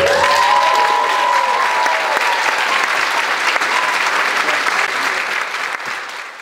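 Audience applauding as a song ends, with a few voices cheering in the first two seconds; the clapping thins toward the end.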